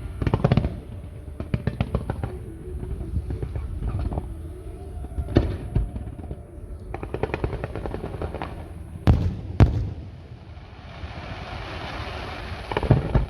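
Aerial fireworks going off: a run of sharp cracks and pops, two loud bangs about nine seconds in, then a crackling hiss near the end.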